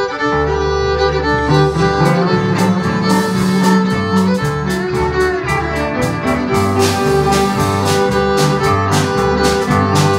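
Live band playing through PA speakers, with a fiddle carrying the melody over guitar and bass notes. Drums keep a steady beat from about two seconds in.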